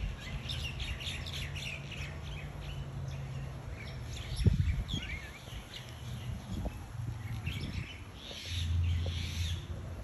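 A flock of common mynas and other small birds chirping and calling, many short overlapping chirps, over a steady low hum. A single low thump about halfway through.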